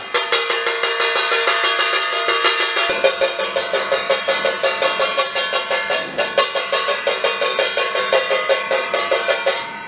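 A steel plate beaten rapidly and evenly with a metal spoon, about five strikes a second, the plate ringing between strikes. It is the beat for a pass-the-ball game and stops abruptly near the end, the signal to stop passing.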